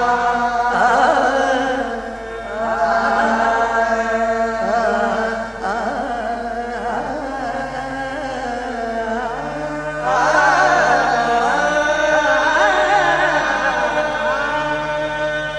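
Punjabi qawwali music: a wavering, ornamented melody, sung or played without words, over lower held notes.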